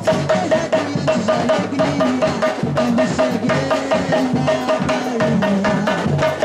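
Samba percussion band (batucada) playing a steady, driving rhythm on drums, with a higher note repeating in time over the beat.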